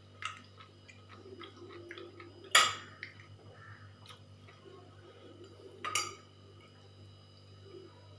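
Dishes and cutlery clinking during a meal: two sharp clinks, about two and a half seconds and six seconds in, with small light clicks between.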